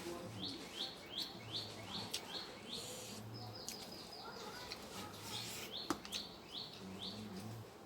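A bird chirping repeatedly in the background: a steady string of short, high chirps, about three a second, with a quicker flurry about halfway through. A single sharp click near the end.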